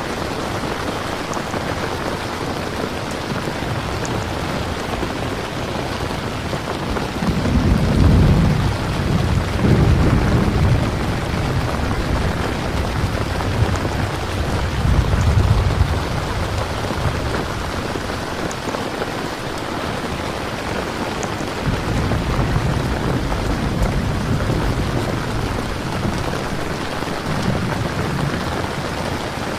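Steady rain falling on a surface, with low rolls of thunder swelling up underneath, loudest about a quarter of the way in and again around the middle, with weaker rumbles near the end.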